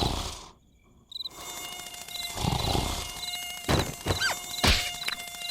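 Cartoon sound effects: a short chirp repeating in the background over steady tones, two long noisy swells, then several sharp hits, one followed by a falling whistle.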